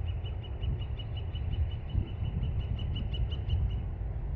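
A bird calling a rapid series of identical short high notes, about five a second, a little louder toward the end and stopping just before the end, over a steady low rumble.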